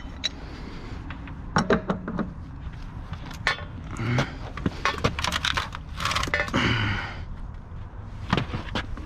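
Metal clanking, clicking and scraping as a brass drain valve is worked loose from a hot water heater. There are scattered sharp knocks, some ringing briefly, and a scrape a little after the middle.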